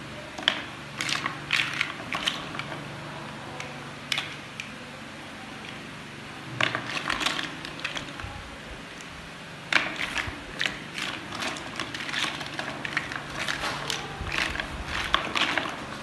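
Plastic toy building blocks clicking and clattering as they are pressed together and rummaged through in a loose pile, in clusters of sharp clicks with short pauses between.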